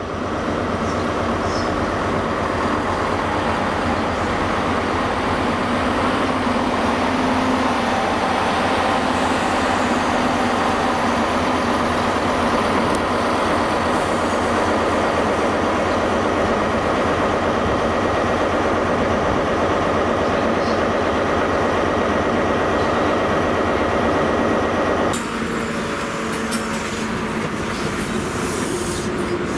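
Class 170 Turbostar diesel multiple unit arriving at the platform, its underfloor diesel engines running over wheel and rail noise. About 25 s in the sound changes abruptly to an HST's coaches and power car rolling by.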